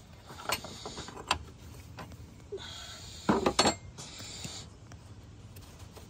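Open-end wrench clinking on the hex of a radiator cooling fan switch as the switch is worked loose: a few sharp metal clicks with short scraping sounds between, the loudest cluster of clicks about three and a half seconds in.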